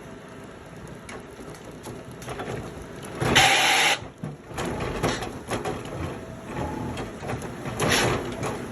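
Woodworking machinery running, with crackling and a loud hissing burst of about half a second a little over three seconds in, and more short bursts near the end.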